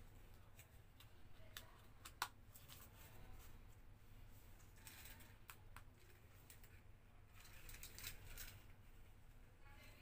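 Faint clicks and rustles of hands handling a plastic toy remote control and helicopter, with one sharper click about two seconds in.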